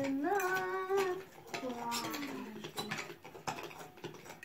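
A child's high, drawn-out wordless vocal sound, rising and then held, followed by a shorter falling tone. After that, metal spoons click and scrape against glass bowls as slime is stirred.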